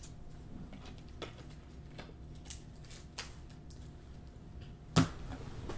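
Faint clicks and taps from trading cards and plastic card holders being handled, with one sharper click about five seconds in.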